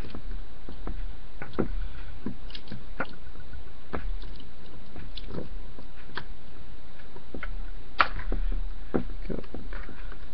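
Irregular small clicks and taps of a 1/8 Allen key turning out the screw of a paintball marker's front sight, with a sharper tap about eight seconds in, over a steady low hum.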